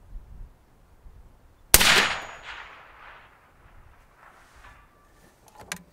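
A single shot from a suppressed Palmetto State Armory PA-10 (AR-10-pattern) semi-automatic rifle about two seconds in, its report trailing off over about a second. A few faint sharp clicks near the end.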